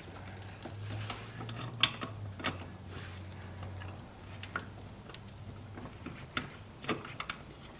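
Ratchet wrench on an extension running down a brake master cylinder mounting nut: a handful of scattered clicks and light metal taps. A steady low hum stops about four seconds in.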